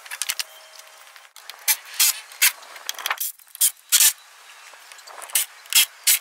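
A tool working the mounting bolts of a pickup truck's running boards: about a dozen short, sharp rasping bursts at irregular intervals.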